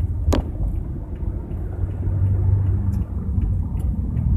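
Steady low rumble of a car heard from inside the cabin as it is driven slowly to park, with one sharp click about a third of a second in.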